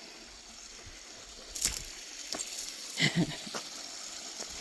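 Small desert waterfall running with a steady hissing rush of water. There is a sharp knock about a second and a half in, and a short, louder noise around three seconds in.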